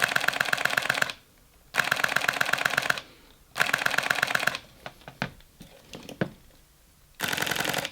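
Fujifilm X-T series mirrorless camera's mechanical shutter firing in rapid continuous bursts: four bursts of fast, evenly spaced clicks, each about a second long, with a few single clicks between the third and fourth. The camera sits on a glass-topped dresser, which sharpens the clicks.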